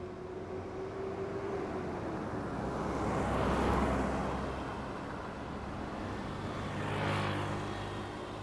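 Two road vehicles pass one after the other, each swelling up and fading away. The louder pass peaks about halfway through, and the second, near the end, carries a low engine hum under the tyre noise.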